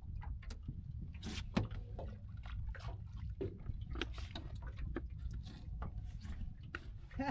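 Wind rumbling on the microphone and water lapping against the boat, with scattered light clicks and knocks at irregular times.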